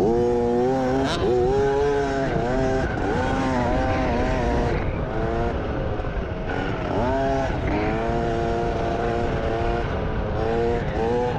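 Small two-stroke dirt bike engine, a KTM 50, revving hard and backing off over and over as it is ridden around a motocross track: the pitch climbs with each burst of throttle and falls away when it is rolled off.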